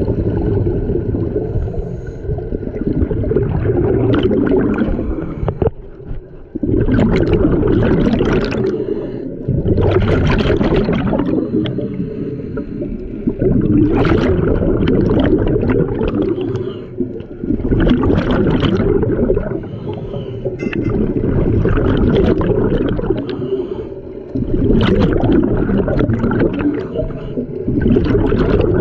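Scuba regulator exhaust bubbles burbling past the camera in bursts with each breath out, about every three to four seconds, over a steady low underwater rumble.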